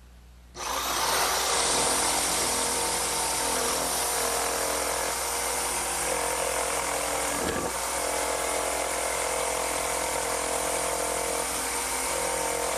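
Electric jigsaw starting up about half a second in and then running steadily as its blade cuts through a wooden board, clearing out the material of a mortise.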